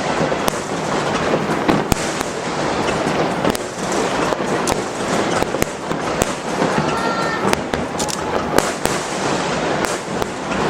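A dense barrage of aerial fireworks: many sharp bangs in quick, irregular succession over a continuous crackle of bursting shells, the finale of a large fireworks display.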